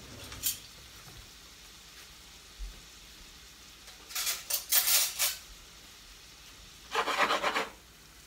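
Metal kitchenware clinking and clattering in a short cluster about four to five seconds in, then a frying pan of sautéing broccoli scraped and shaken on a glass-top electric stove near the end.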